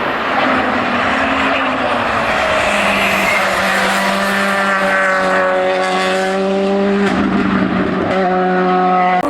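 Hill-climb race car's engine running hard on the climb, a loud strained note that holds fairly steady for several seconds and then changes sharply twice near the end.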